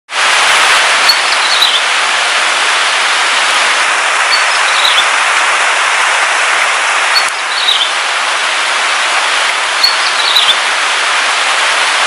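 Heavy rain falling steadily, a loud even hiss. A bird gives a short high call four times, about every three seconds, faint under the rain.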